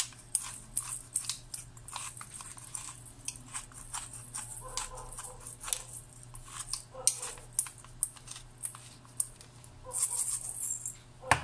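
Hand pepper mill grinding pepper: a run of irregular crunching clicks as the top is twisted, denser about ten seconds in, with a sharp knock near the end.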